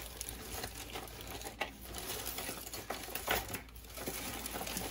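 Hands rummaging through a bag of mixed costume jewelry: beads, chains and metal pieces clicking and jingling against each other in irregular little bursts, with plastic bag crinkling.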